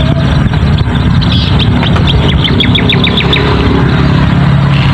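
A small bird chirping a fast run of high notes, about seven a second, in the middle, over an engine running steadily with a constant low hum.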